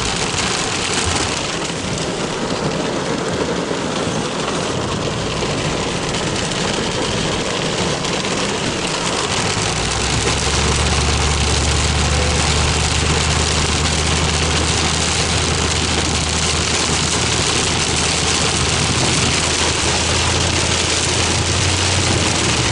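Vehicle engine running steadily under a constant hiss; the low engine hum grows stronger about halfway through.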